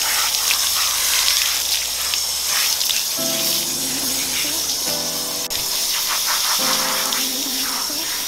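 Water hissing from a garden hose spray nozzle onto a dog's coat and the paving beneath, with background music whose held chords come in about three seconds in.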